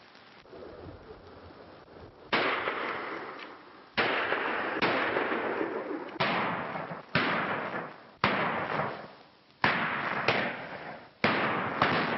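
Ambush gunfire: about ten pistol shots fired one after another, roughly a second apart, each a sharp crack with a short echoing tail. Heard on a thin, early-1930s film soundtrack.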